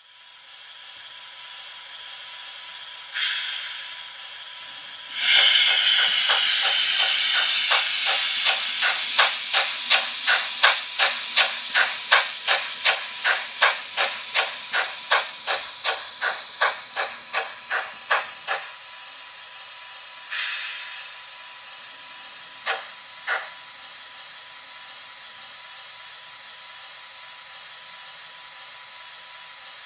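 Digital steam sound of a Märklin HO model steam locomotive played through the model's small speaker: a short hiss, then a long burst of hiss that turns into a steady run of chuffs, about two to three a second, stopping about two thirds of the way through. Later come another short hiss and two single puffs, over a constant faint hiss.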